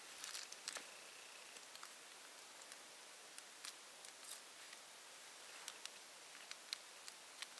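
Small wood fire crackling faintly: scattered sharp pops and clicks at irregular moments over a low hiss, a few bunched together about half a second in.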